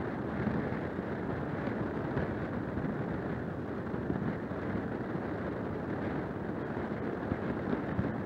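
Steady low rumbling noise of wind buffeting an outdoor nest-camera microphone, with no distinct calls or knocks.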